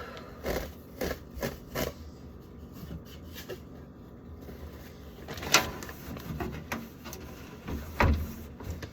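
Light knocks and clatters of things being handled around a refrigerator and its drawers: a quick run of four in the first two seconds, then a sharper knock about five and a half seconds in and another near the end.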